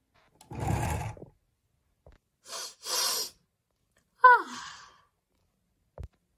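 A voice making non-word sounds: a breathy sigh, then two short hissing breaths, then a sharp cry that falls in pitch, and a faint click near the end.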